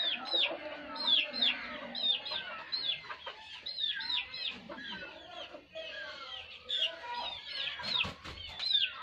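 Aseel chickens clucking, over chicks peeping: high, falling peeps in quick twos and threes again and again. A short burst of wing flapping comes about eight seconds in.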